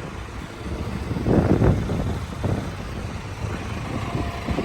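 John Deere 310D backhoe loader's diesel engine running at idle under a rumble of wind on the microphone, with a louder swell about a second and a half in.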